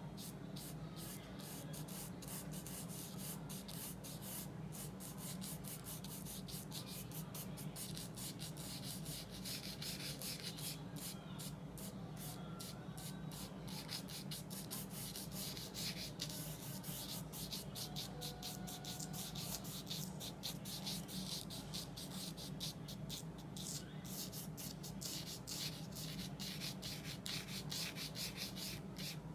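Paintbrush bristles scrubbing oil paint across gesso-coated paper in quick, repeated scratchy strokes, several a second, over a steady low hum.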